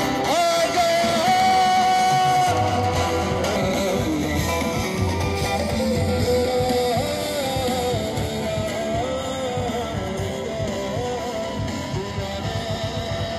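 Live rock band playing through a loud PA: a male singer's melody over electric and acoustic guitars, with the bass coming in about two and a half seconds in.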